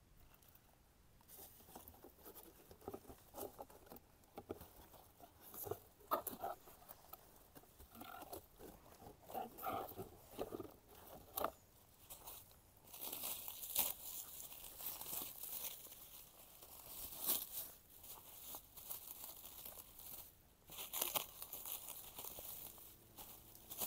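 Packaging around rose seedlings being crinkled and torn open as the seedlings are unwrapped by hand. It is an irregular run of crackles and rustles that grows busier and brighter in the second half.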